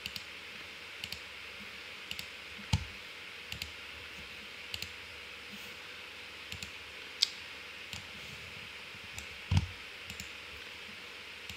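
Computer mouse clicks, a dozen or so at irregular intervals, over a faint steady hiss; two of them, about three seconds in and near the end, are louder with a low thump.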